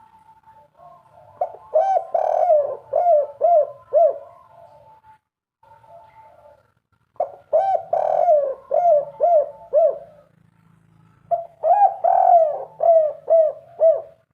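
Spotted dove singing its cooing song three times, each phrase a quick run of repeated coos. Fainter dove calls are heard between the phrases.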